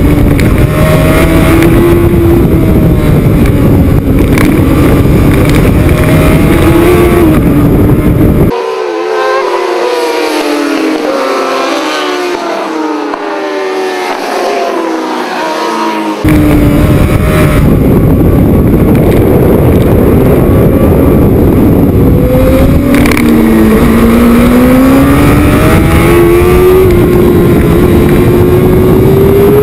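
A racing sport bike's engine heard on board at speed, running hard under heavy wind rumble, its note rising and falling through the gears. For several seconds in the middle, several racing motorcycles are heard from the trackside instead, their engine notes sliding as they go past. Near the end the on-board engine note dips, then climbs steadily as the bike accelerates.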